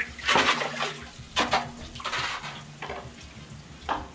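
Water splashing and sloshing in a plastic bucket as it is dipped into a well and hauled up on a rope, in a string of short splashes.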